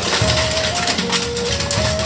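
Background music with a simple melody of held notes, over a dense, steady clatter of oyster shells being knocked and shucked.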